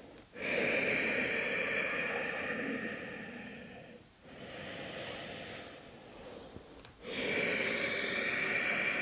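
A woman's slow, deep breathing during a held yoga stretch: three long breaths of about three to four seconds each, the middle one softer.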